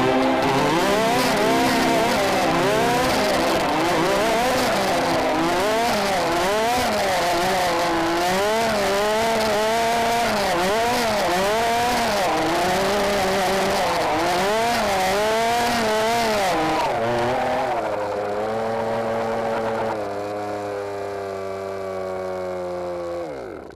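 1:5-scale RC buggy's Zenoah two-stroke engine revving up and down over and over under throttle as the buggy is driven hard. In the last few seconds it runs at a steadier pitch, then falls away suddenly.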